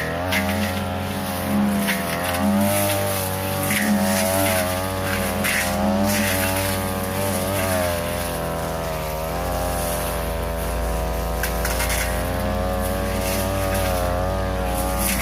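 42cc two-stroke brush cutter running at high speed, its pitch dipping and recovering again and again as the blade bites into tall grass and brush. Short sharp hits of the blade striking stems stand out now and then.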